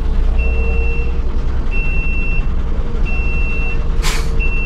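Reversing warning beeps in the cab of an Ashok Leyland BS-6 low-floor bus put into reverse: a steady high beep about three-quarters of a second long, repeating roughly every 1.3 seconds, over the low rumble of the idling rear-mounted engine. A short hiss comes about four seconds in.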